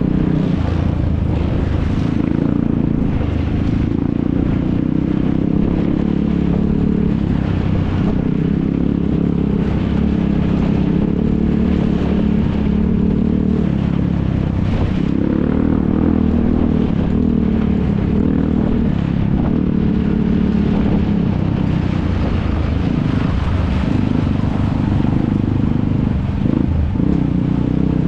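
ATV (quad bike) engines running loudly and without a break.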